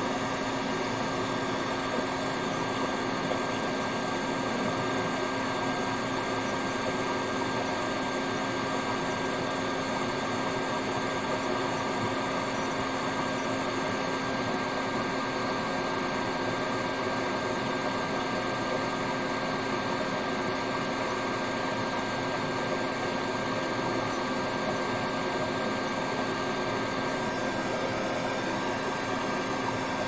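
Steady fan hum and hiss with a faint constant whine, unchanging throughout.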